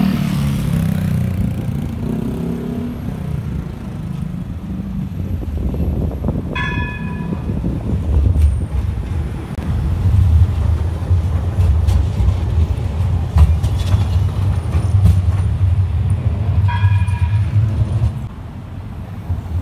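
Bombardier Flexity Outlook tram running along street track: a low rumble of wheels and traction equipment that swells as it passes close, from about eight seconds in until near the end. A short high ringing tone sounds twice, about ten seconds apart.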